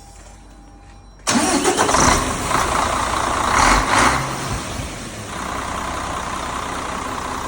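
KamAZ NEO truck's diesel engine starting: it catches suddenly about a second in, runs up briefly, then settles into a steady idle. With its injectors freshly repaired, it runs much more evenly, no longer misfiring on one cylinder.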